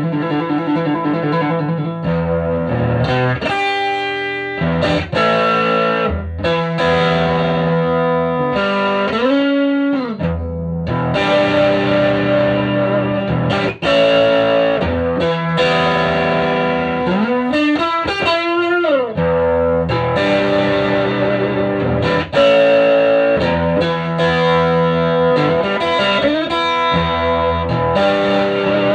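Electric guitar played through a 1965 WEM Control ER15 valve PA head with push-pull EL84 output valves, picking single notes and lines. Twice, notes are bent up and let back down.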